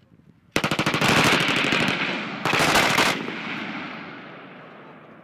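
Bipod-mounted machine gun firing two bursts of automatic fire, a long burst of about a second and a half and then a short one, with the echo fading slowly afterwards.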